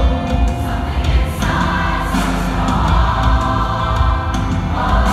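A large, mostly female pop choir singing in full voice, holding long chords that change about a second and a half in and again near the end, over a steady deep bass.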